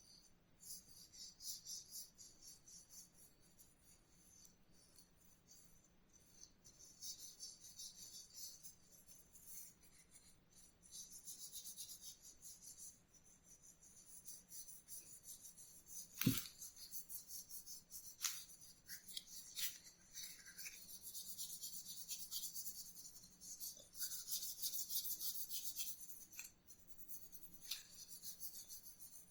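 Quiet hand-abrading strokes, a dry rasping and rubbing in uneven runs, with one sharp knock about halfway through.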